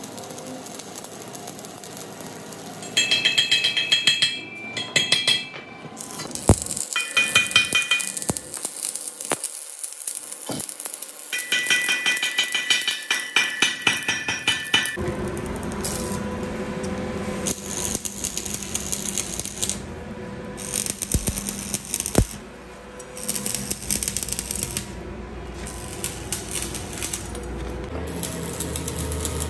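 Stick-welding arc crackling and spitting as a bead is laid at a broken bolt in a wheel hub, the weld being built up so the broken bolt can be extracted. Background music plays throughout.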